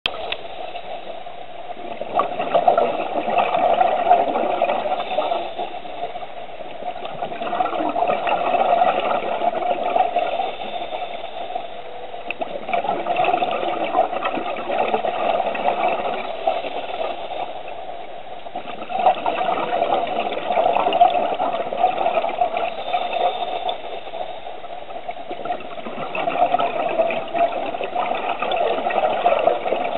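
Scuba diver breathing through a regulator underwater: a few seconds of bubbly exhalation noise, about every five to six seconds, with quieter spells between.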